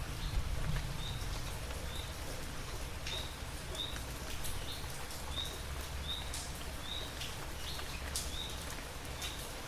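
Steady rain with scattered sharp drip ticks and a low rumble, while a bird gives a short high chirp about once a second.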